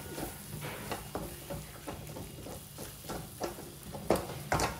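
Spatula stirring and scraping masala in a kadhai that is not non-stick, making irregular light knocks against the pan with faint sizzling, the strongest knocks near the end. The spices are sticking and burning on the pan.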